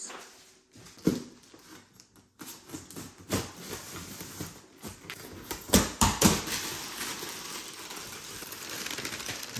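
A cardboard moving box being opened: a dull knock as the box is shifted, then a blade scraping and packing tape tearing off the cardboard, two sharp cracks about six seconds in, and packing paper rustling inside the box.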